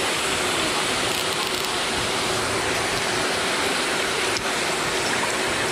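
Pond aerators splashing water: a steady rushing noise, with a faint steady hum underneath.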